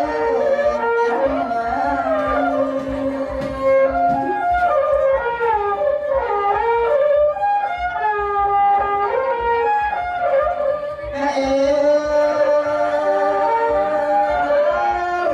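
Traditional Khmer wedding music: a man sings through a microphone while a reedy wind instrument plays a wavering melody alongside.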